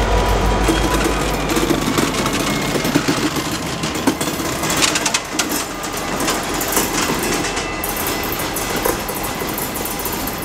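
Diesel freight locomotive passing close by: its steady engine drone drops away about two seconds in, leaving the wheels clicking and clattering over the rails as the train moves off and slowly fades.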